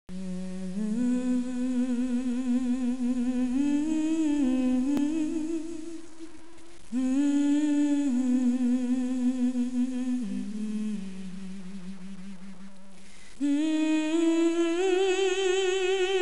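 A voice humming a slow, wordless melody of long held notes with vibrato, in three phrases; the second dies down to a quieter low note before the third begins.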